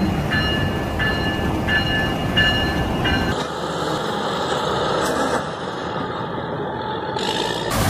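Diesel locomotive running with a low rumble, with a ringing tone repeating about every two-thirds of a second. About three seconds in it cuts to a steady, duller engine noise from a tractor and sugarcane harvester at work.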